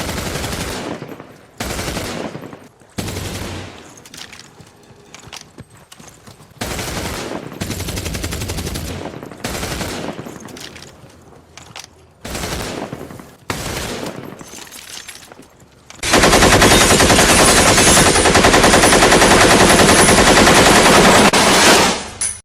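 AK-47 rifle gunfire: a series of single shots and short bursts, each with a trailing echo, then about six seconds of continuous full-automatic fire that stops abruptly near the end.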